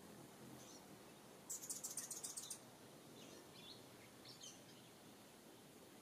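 Wild songbirds calling: a rapid rattling trill lasting about a second, the loudest sound, then a few faint short high chirps.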